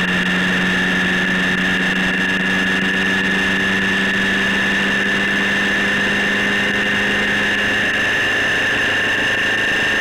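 Suzuki Hayabusa motorcycle cruising on the open road: a steady engine drone mixed with constant wind rush and road noise on the bike-mounted camera. The lower engine tone eases slightly about eight seconds in.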